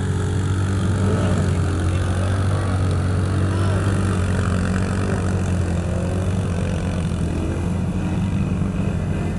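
ATV engines running steadily at low speed as the quads ride through mud, a constant low drone.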